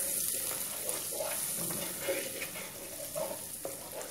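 Caramel and melting butter bubbling and sizzling in a hot nonstick pan, with a wooden spoon stirring and scraping and giving a few faint knocks against the pan.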